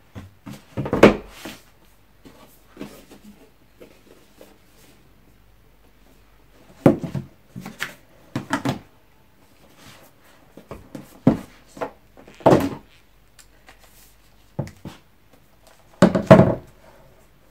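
Scattered knocks, thuds and rustles of a cardboard MacBook Pro box, its lid and paper inserts being handled on a table. The loudest thumps come about a second in and about sixteen seconds in.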